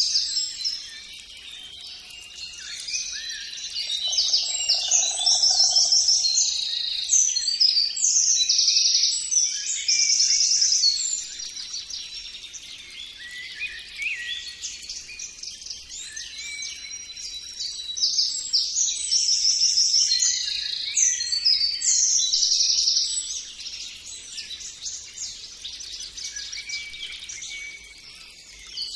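Several songbirds singing and chirping at once, with rapid trills that swell and fade in waves.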